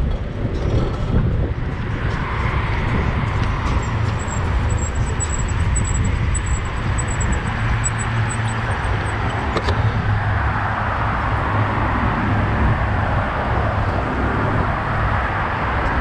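Steady wind rumble on the microphone mixed with road noise, as from riding or standing by a road. A faint, high, pulsing tone runs for a few seconds in the first half.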